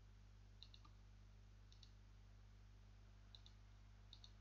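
Near silence with a low steady hum, broken by four faint pairs of computer mouse clicks about a second apart.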